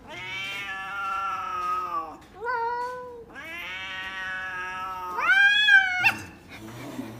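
Domestic cat yowling in long drawn-out calls: a long call sinking in pitch, a short rising-and-falling one, another long call, then a louder yowl that rises and falls. A sharp knock comes about six seconds in, as the orange tabby swipes a paw.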